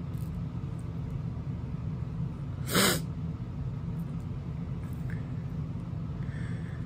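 A steady low hum, broken about three seconds in by one short, loud burst of noise, with a few faint light ticks.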